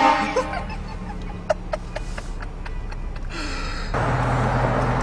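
Train horn blast cutting off at the very start and briefly ringing out, followed by scattered clicks and a short burst of laughter about three seconds in. A low steady hum comes in near the end.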